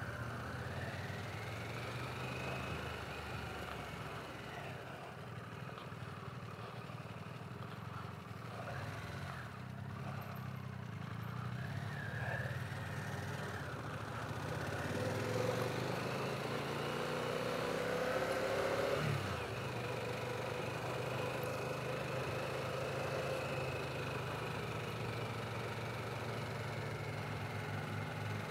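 Harley-Davidson Pan America's V-twin engine running under way on a dirt track, with its note and loudness rising over several seconds past the middle, then dropping suddenly about two-thirds of the way through.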